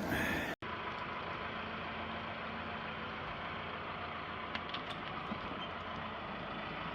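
A heavy machine's engine running steadily, with a few faint clicks about two-thirds of the way through; the sound cuts out briefly about half a second in.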